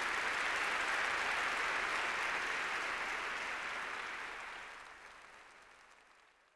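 Audience applauding, steady at first and then fading away over the last few seconds.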